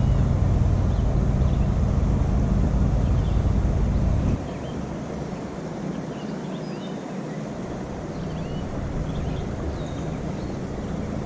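A steady low rumble that drops away suddenly about four seconds in, with faint bird chirps scattered over it.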